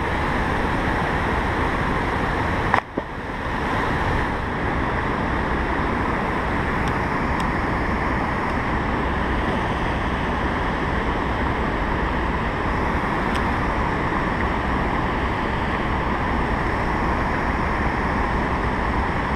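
Steady rush of white water pouring over a low-head dam spillway and churning below it.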